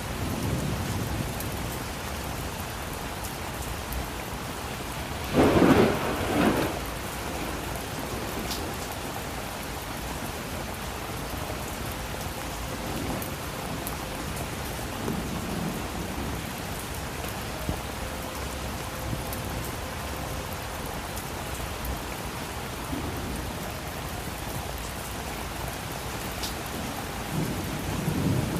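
Steady rain falling, with thunder: a loud sudden clap about six seconds in and low rumbles at the start and near the end.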